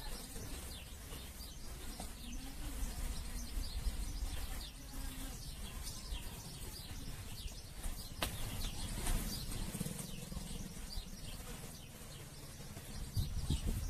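Small birds chirping and twittering over and over, over a steady low outdoor rumble.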